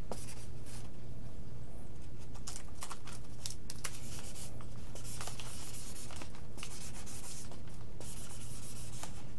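Hobby heat-sealing iron with a cloth sock sliding over a vinyl decal on an RC airplane wing, heating the decal's adhesive so it sticks again: irregular soft rubbing and scratching strokes.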